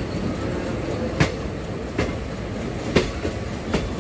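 A moving train heard from on board: a steady rumble of wheels on rails, broken by four sharp clacks about a second apart as the wheels cross rail joints or points. The second and fourth clacks are the loudest.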